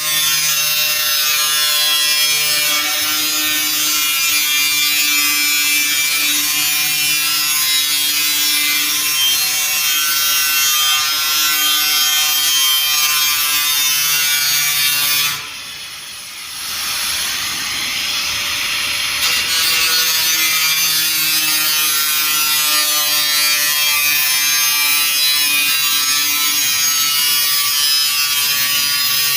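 Electric grinder running continuously, a loud, hissy grinding noise over a steady motor whine. About fifteen seconds in the sound drops suddenly, then builds back up over the next few seconds.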